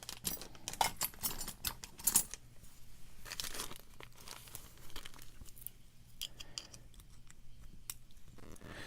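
Small clicks, taps and rustling scrapes from handling a disassembled padlock and its tools, busiest in the first few seconds, then sparser.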